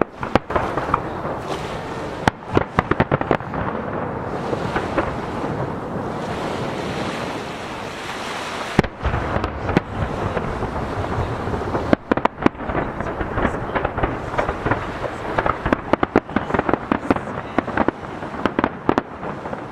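Aerial fireworks shells bursting in clusters of sharp bangs and crackles, echoing off nearby mountains, densest near the end. Waves breaking on the jetty and wind on the microphone make a steady noise underneath.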